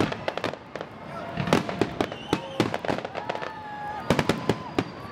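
Aerial fireworks display: a rapid, irregular series of sharp bangs as shells burst overhead, several close together.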